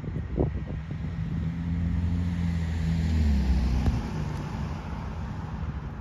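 A car passing by on the street: a low engine hum and tyre noise swell to a peak about three seconds in, then fade away.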